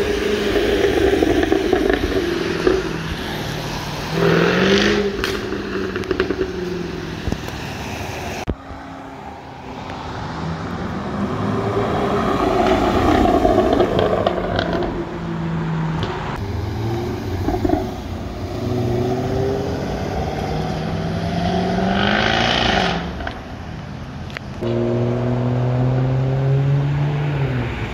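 Jaguar F-type exhaust during several accelerations, its note climbing and falling from one pull to the next. Short pops and crackles come through the exhaust.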